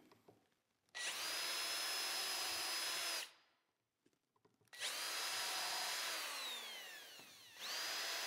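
Cordless drill spinning a self-centering Vix bit to pre-drill screw holes for T-track, in three short runs. The first starts about a second in. The second, in the middle, sinks in pitch as the motor slows before stopping. The third starts near the end.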